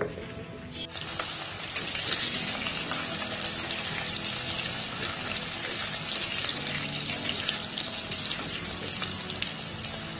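Slit bitter gourds deep-frying in hot oil in a kadai, a steady dense sizzle and crackle that starts abruptly about a second in. Faint background music plays underneath.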